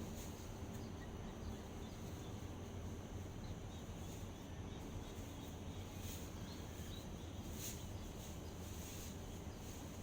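Outdoor dawn ambience: a steady high-pitched insect drone with a few faint bird chirps over a low background rumble.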